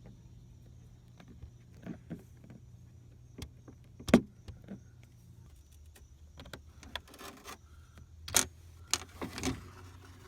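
Plastic cowl trim and fittings under the windshield being worked loose and handled by hand: scattered clicks, knocks and rattles, with a sharp knock about four seconds in and a run of louder clicks near the end, over a low steady hum.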